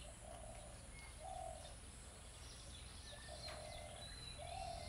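A dove cooing: four short, low coos in a row, with faint chirps of other birds in the background.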